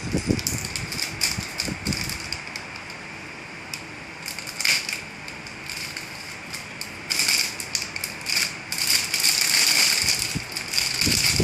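Plastic bags crinkling and crackling as model-kit parts runners are pulled out of their wrappings, in irregular bursts that come thickest at the start and again over the last few seconds.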